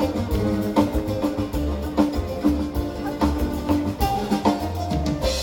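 Live band music over a PA system, with a steady drum beat, deep bass and pitched instrument lines.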